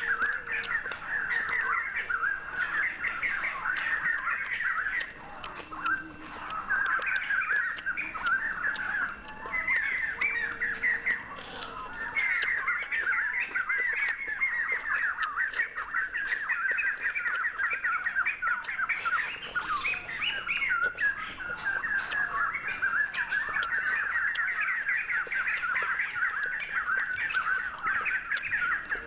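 Birds calling continuously, a dense chatter of rapid, short chirping and squawking notes, with faint scattered clicks over it.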